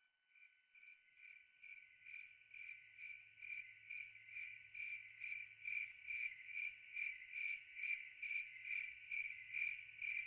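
Cricket chirping in a steady rhythm, about two chirps a second, fading in from silence and growing louder.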